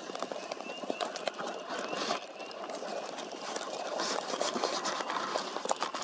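An osprey calling: a series of short, rising whistled chirps, about two a second, clearest in the first half, over a dense irregular crackling and rustling.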